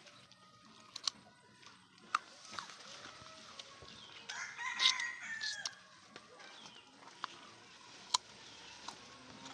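A rooster crowing once, about four seconds in, for about a second and a half. Several sharp clicks sound before and after it.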